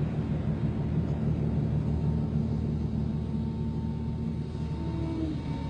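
Ship's machinery running with a steady low rumble and a constant hum.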